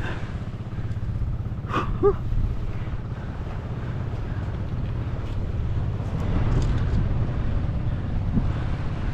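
Wind buffeting the microphone with a low, steady rumble. A brief high-pitched call comes about two seconds in.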